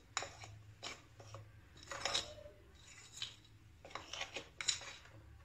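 A metal fork stirring flour into a wet dough in a glass bowl, its tines scraping and clicking against the glass in quick, irregular strokes.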